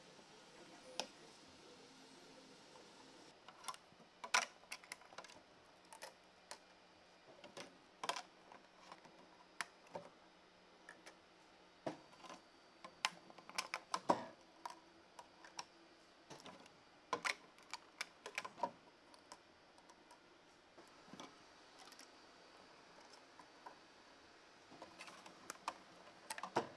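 Irregular small clicks and taps of 3D-printed plastic parts being popped off and handled on a flexible steel print sheet. The clicks come in scattered clusters, thickest in the middle and near the end.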